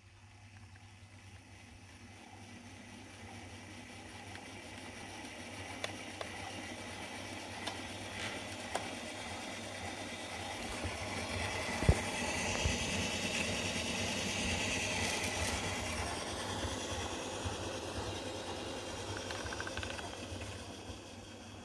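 Märklin 37080 H0 model locomotive running on track with its digital sound, growing steadily louder to a peak about halfway through and then fading again, as it approaches and moves away. A few sharp clicks, the loudest about halfway through.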